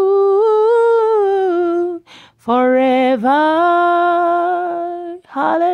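A woman singing unaccompanied, holding long notes on the words "you ... forever" of a slow worship chorus, with a short breath about two seconds in.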